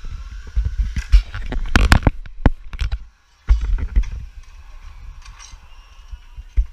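Sharp metallic clicks and clanks of zipline harness gear on the steel cable, clustered between about one and three seconds in, over low rumbling noise on the camera microphone that cuts out briefly just after three seconds.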